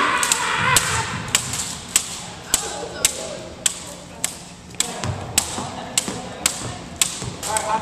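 Double dutch jump ropes slapping a hardwood gym floor in a steady rhythm, two ropes alternating, with louder slaps about every half second and softer ones in between. A jumper's feet thud on the floor in places, and voices chatter in the background.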